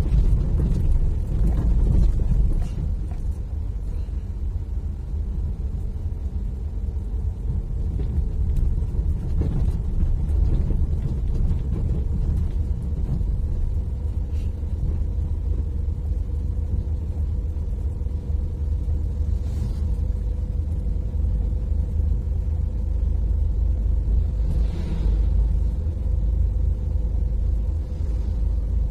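Steady low rumble of engine and tyre noise heard from inside a moving vehicle, a little louder for the first couple of seconds, with a faint steady whine joining about a quarter of the way in.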